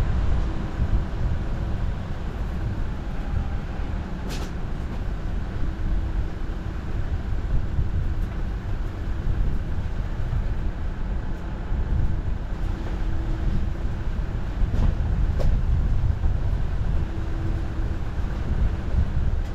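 Toyota Land Cruiser Prado driving along an off-road green lane, heard from a camera on its roof: a steady low rumble of engine and tyres, with a couple of sharp clicks about four and fifteen seconds in.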